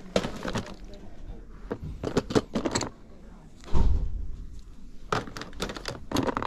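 Small plastic toy figures clattering and clicking against each other as a hand rummages through a bin of them, with a dull thump just past halfway.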